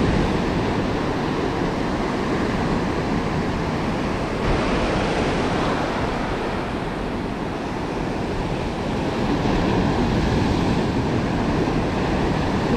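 Ocean surf washing onto the beach in a steady wash, with wind rumbling on the microphone.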